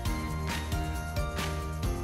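Instrumental background music with sustained notes over a steady beat of about two strikes a second.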